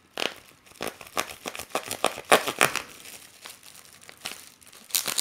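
Plastic wrapping being crinkled and pulled open by hand, a run of irregular crackles, with some tearing of packing tape.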